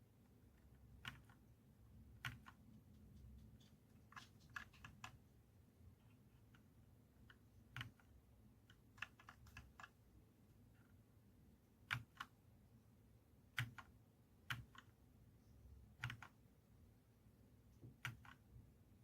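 Dierya T68SE 60% mechanical keyboard with clicky blue switches, its keys pressed one at a time in an irregular, unhurried pattern, with a few quick runs of two or three presses.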